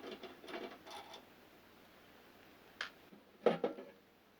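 Clicks and metal knocks from unscrewing a microwave oven's magnetron: a run of small clicks in the first second, a single click near three seconds, then the loudest knock half a second later.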